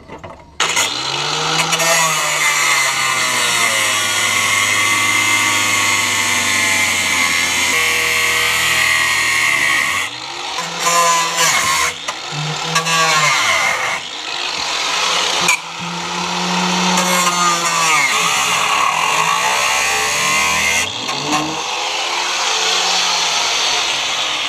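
Grinder with an abrasive cutting disc cutting through the steel battery box in the rear floor of an R53 Mini Cooper S. The motor's pitch dips and recovers as the disc bites, and the cut stops briefly several times from about ten seconds in.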